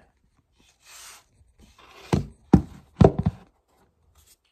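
Phone being handled and repositioned: a brief rustle, then a cluster of loud knocks and thumps against the phone's body.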